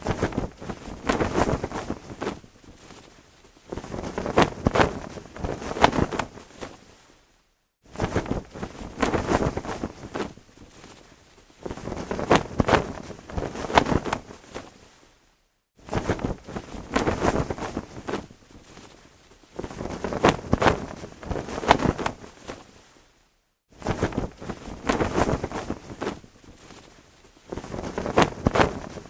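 Cloth flag flapping and snapping in gusty wind, in swells that rise and fade. The same stretch of about eight seconds repeats, with a brief silence between each repeat.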